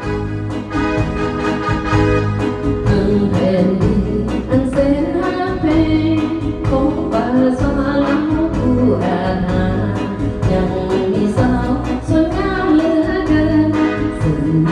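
A woman singing into a microphone over a recorded backing track with a steady beat, played through loudspeakers.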